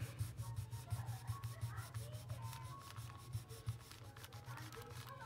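A crayon is scribbled rapidly back and forth on paper, shading in a drawing. It makes an even scratching of about eight strokes a second that thins out near the end, over a steady low hum.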